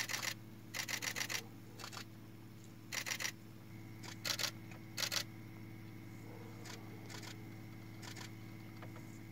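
Camera shutter clicking in short rapid bursts, about six runs in the first five seconds, over a steady low hum.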